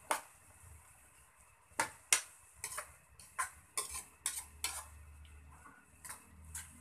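Metal ladle stirring a thick jackfruit and coconut-milk mixture in a wok, scraping and knocking against the pan in a string of sharp clicks, busiest in the middle.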